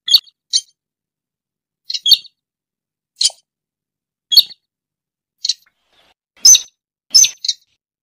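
Slaty-breasted rail (sintar) giving short, sharp, high calls, about ten of them, roughly one a second and some in quick pairs, the loudest near the end.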